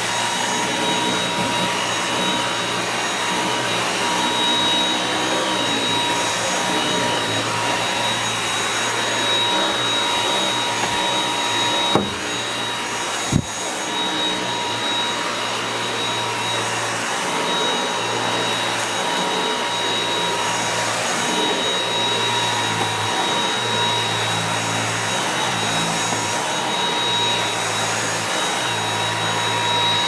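Dyson V8 cordless stick vacuum running on standard suction, a steady high motor whine over the rush of air as its floor head is pushed over carpet. Two sharp knocks about twelve and thirteen seconds in, and the motor cuts off at the end.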